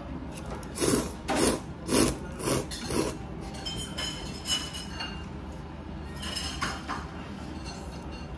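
A person slurping ramen noodles in a run of about five quick slurps, roughly half a second apart, over the first three seconds. Softer slurping follows later, as soup is taken from a spoon.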